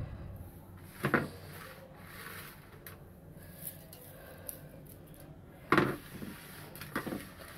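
Kitchen handling sounds as fried onions are scattered by hand over rice in an aluminium pot: a faint rustle with three sharp knocks, one about a second in and two close together near the end.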